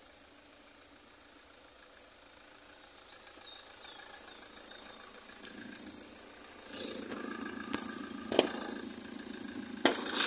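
Toyota Hilux turbo-diesel engine idling, growing louder as the bonnet is opened. A few sharp clicks near the end come from the bonnet being released and raised.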